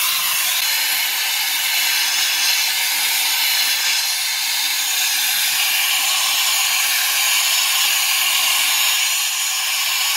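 Gas torch flame hissing steadily as it heats a leaf spring eye to soften the seized rubber bushing inside.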